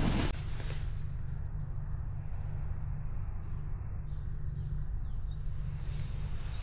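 A brief loud rustle at the start, then faint high chirps repeating a few times a second over a steady low rumble.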